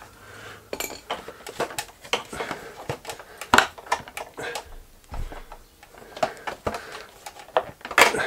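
Hard plastic clicking and knocking as a motorcycle's black plastic side cover is pulled and wiggled loose from its mounts by hand: an irregular run of sharp clicks and taps, with a dull thump about five seconds in.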